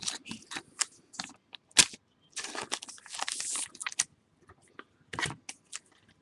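Trading cards and plastic card sleeves being handled: scattered clicks and crinkling rustles, with a longer rustle a couple of seconds in and a short one near the end.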